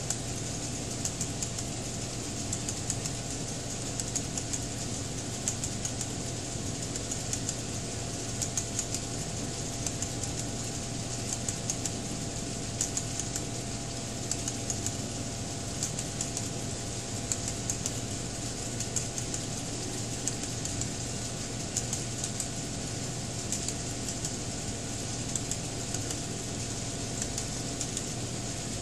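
HO scale model freight cars rolling over the track, their wheels giving many small irregular clicks over the rail joints, over a steady hum.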